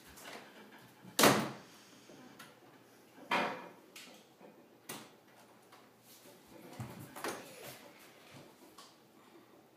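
A few separate thuds and knocks: the loudest about a second in, a second one about two seconds later, then fainter ones.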